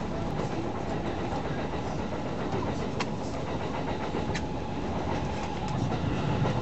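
Running noise inside a moving electric train carriage: a steady low rumble of wheels on rails, with a few sharp clicks.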